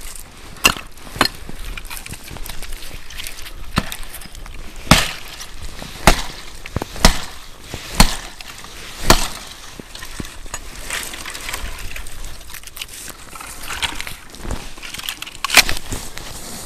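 Hatchet chopping a dry branch into firewood: sharp cracking blows, about one a second for several seconds in the middle, with a pause and one more blow near the end.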